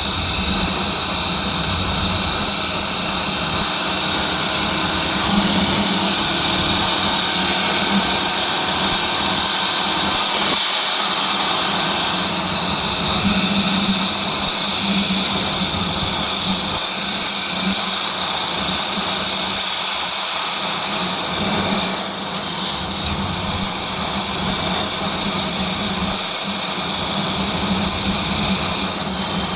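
Motorcycle running steadily on the road while riding, with wind rushing over the microphone.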